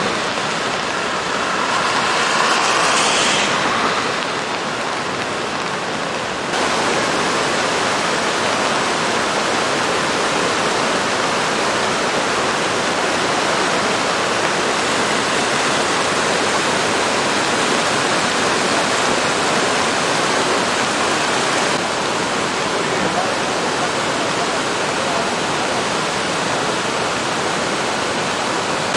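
A river in flood: fast, muddy, swollen water rushing and churning over rapids and a weir in a steady, loud noise, which shifts slightly in loudness a few times.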